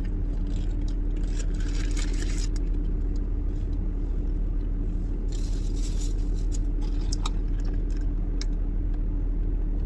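Steady low hum of a car idling, heard from inside its cabin. Over it, a paper burger wrapper rustles and food is chewed in two short bursts, about a second in and again past the middle.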